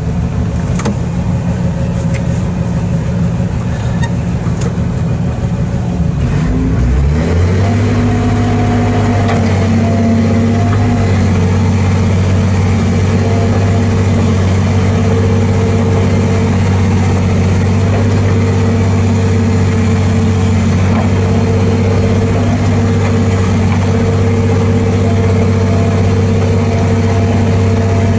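Excavator diesel engine running. Its pitch rises about seven seconds in as it revs up, then holds steady at high working revs.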